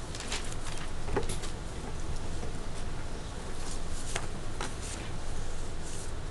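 Classroom room noise while students work quietly at their desks: scattered small clicks, taps and rustles over a low steady hum.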